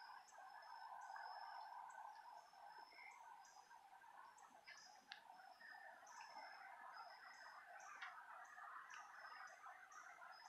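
Faint chorus of calling night creatures: a steady trilling hum with a short, high chirp repeating about twice a second.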